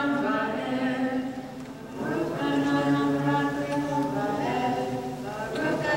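A group of voices chanting together in unison, in long held notes, with a short break about a second and a half in. This is the Hebrew blessing recited by those called up to the Torah.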